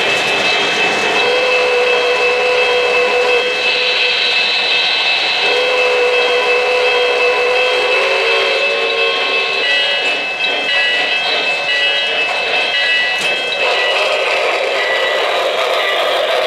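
K-Line New York Central Hudson O-gauge model steam locomotive running past with its freight cars on three-rail track: steady running noise with a few long held tones.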